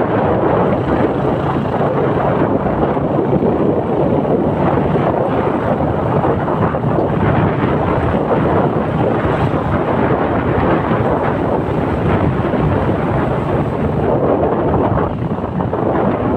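Wind buffeting the microphone of a phone carried on a moving motorcycle, a loud steady rumbling rush, with the motorcycle's engine running underneath.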